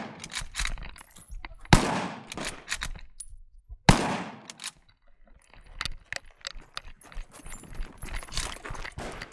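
Two shots from a Chinese Type 53 bolt-action carbine in 7.62x54R, about two seconds apart, each with an echoing tail. After them come several seconds of rapid metallic clicking and clatter from the rifle's bolt and action being worked.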